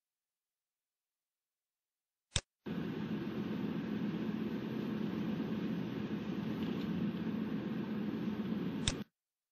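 Steady car-cabin driving noise, a low rumble of engine and road heard from the driver's seat, starting just after a sharp click and cutting off suddenly with another click near the end.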